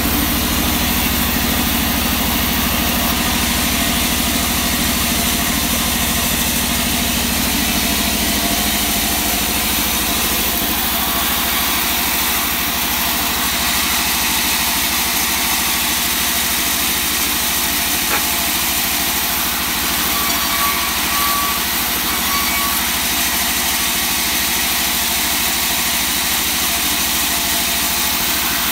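Large sawmill band saw running steadily while slabs of wangkal wood are sawn into boards, a continuous machine drone.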